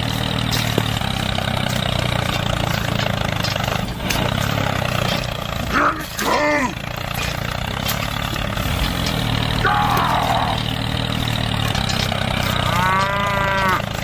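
A cow mooing three times, about six, ten and thirteen seconds in, over a steady tractor-like engine drone.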